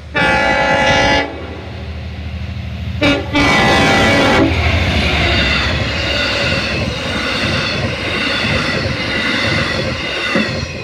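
Long Island Rail Road diesel passenger train sounding its horn for a grade crossing: a long blast, a short one about three seconds in, then another long one, over the locomotive's engine. The passenger cars then pass close by with a steady rattle of wheels on the rails.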